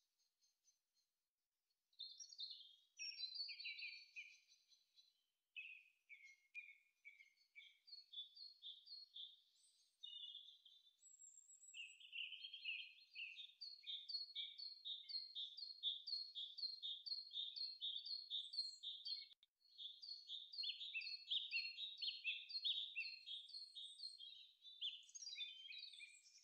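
Songbirds chirping and trilling: quick runs of short, high notes that start about two seconds in, with long stretches of rapidly repeated chirps through the rest.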